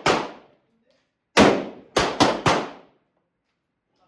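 Five gunshots, each with a short echoing tail: one at the very start, then four in quick succession about a second and a half in.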